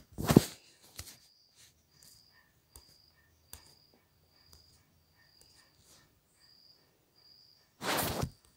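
A cricket chirping steadily, a short high chirp about every three-quarters of a second, over a faint low hum. Two short loud bursts of noise stand out, one at the start and one near the end.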